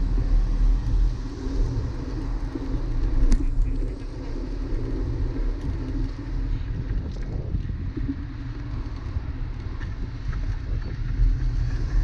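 City street traffic noise heard from a bicycle crossing an intersection: a steady low rumble of passing cars and a bus, with a single sharp click a little over three seconds in.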